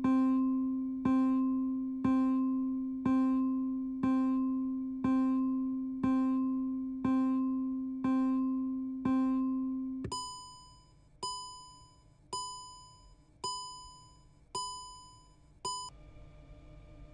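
Electronic warning chime sounding once a second in time with a take-over-request countdown in a semi-autonomous car's cockpit, each chime a low tone that rings and fades. About ten seconds in, as the countdown runs out, it changes to a higher, thinner chime, repeated six times at the same pace.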